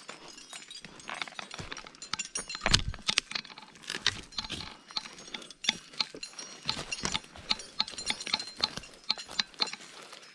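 Irregular clinks and knocks of metal climbing hardware and boots on rock as a stream climber moves over the rocks, with the loudest knock about three seconds in.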